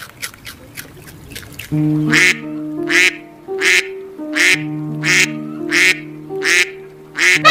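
A duck quacking over and over, about eight short quacks roughly one every 0.7 seconds, starting about two seconds in, over background music with steady held notes.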